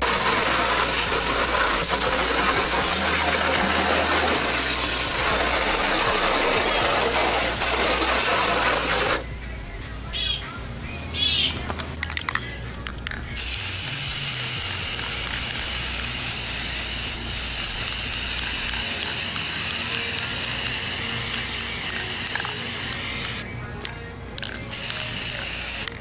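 Water from a hose spraying onto a plastic motorcycle fairing for about nine seconds. After a short break come a few brief sounds, then a Rust-Oleum aerosol primer can hissing steadily for about ten seconds, with a couple of short spray bursts near the end.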